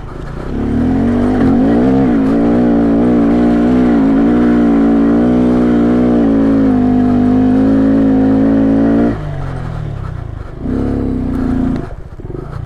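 A 125cc single-cylinder mini motorcycle engine held at high revs for about nine seconds, its pitch wavering slightly, then dropping off suddenly. A shorter rev follows near the end.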